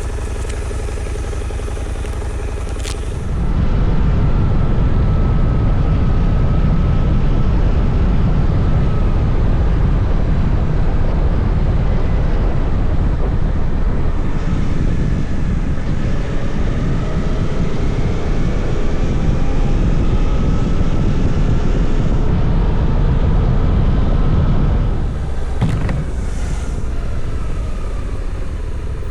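A Suzuki V-Strom 800DE motorcycle running on the move, its engine note under heavy wind rumble on the microphone. It gets louder about three seconds in as the bike picks up speed, then eases back near the end.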